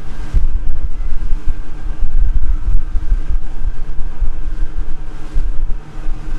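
Fishing boat's engine running under way, heard from the helm, with a loud low rumble that surges irregularly, like wind buffeting the microphone, over a steady engine hum.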